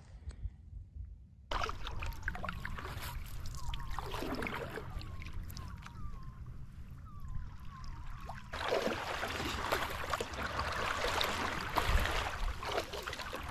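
Water swishing and splashing along the nose of a paddleboard as it moves through shallow sea water. The sound steps up suddenly about a second and a half in and gets louder again past the middle.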